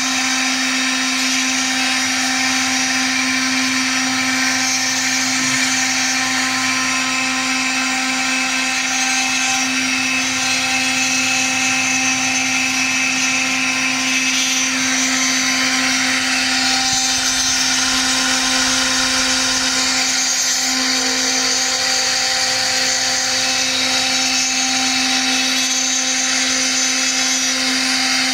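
Milling cutter spindle cutting textolite (phenolic laminate sheet): a steady high motor whine with a hiss of the bit chewing through the material, the hiss growing stronger for a few seconds about halfway through.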